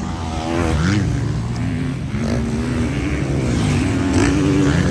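Several motocross bikes' engines revving on the track, overlapping, with pitch rising and falling as they accelerate and shift.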